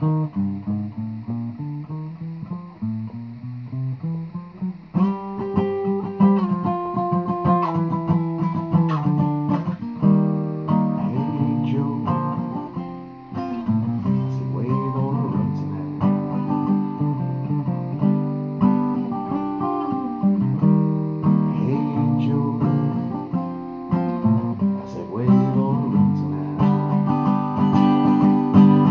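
Cutaway acoustic guitar strummed, changing chords in an instrumental passage; quieter for the first few seconds, then fuller strumming from about five seconds in.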